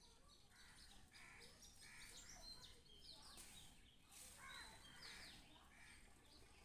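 Near silence, with faint bird chirps in the background: a few clusters of short, high, falling calls.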